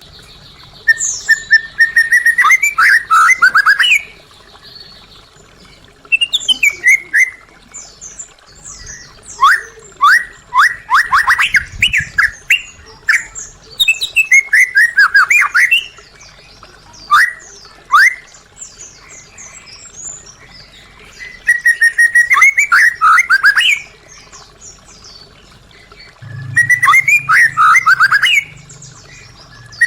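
White-rumped shama singing: loud bouts of rapid, sweeping whistled notes, each bout one to three seconds long, repeated about seven times with short pauses between.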